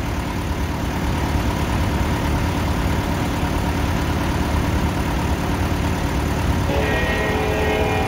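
TimberKing band sawmill running steadily under engine power. About seven seconds in, a higher whine of several steady tones joins in.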